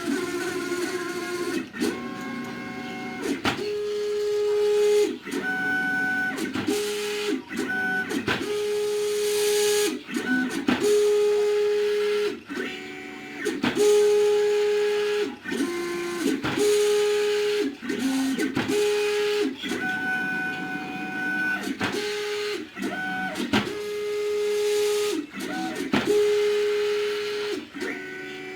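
Stepper motors of a CNC plotter whining as it draws, the tone starting and stopping every second or two with short pauses and small changes in pitch as the moves change.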